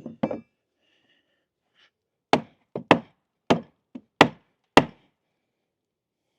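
Hammer blows on wooden deck boards: a few soft knocks at the start, then a run of about six sharp strikes about half a second apart, from about two seconds in until near the five-second mark.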